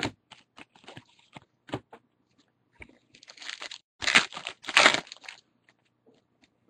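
Trading cards and a foil pack wrapper being handled: small clicks and rustles, then two louder crinkling bursts about four and five seconds in.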